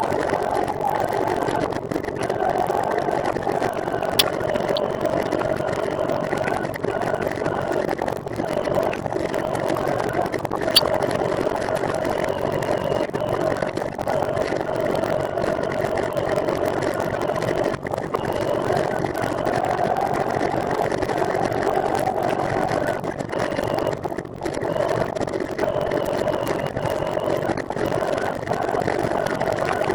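Steady mechanical drone whose pitch wavers slightly, with two short sharp ticks about four and eleven seconds in.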